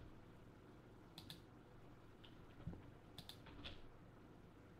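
Faint clicking of a computer keyboard and mouse, in a few quick pairs of clicks about a second in and again past halfway, over near-silent room tone.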